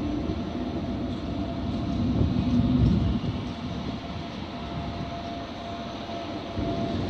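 ICE high-speed train rolling past along a station platform: a steady rumble of wheels on rail with a faint steady tone over it, swelling louder about two to three seconds in.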